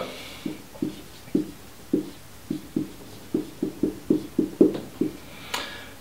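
Dry-erase marker writing on a whiteboard: a quick, uneven run of about fifteen short squeaky strokes.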